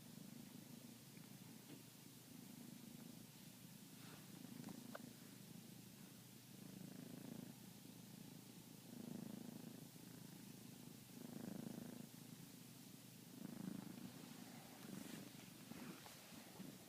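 Kitten purring quietly and steadily, a low rumble that swells and eases every second or two with its breathing.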